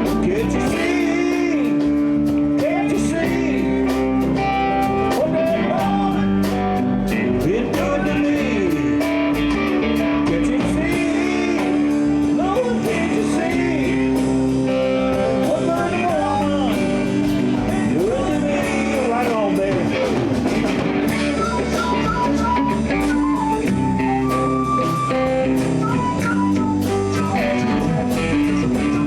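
Live blues band playing, with electric guitar to the fore over bass and drums, and a lead line that bends up and down in pitch.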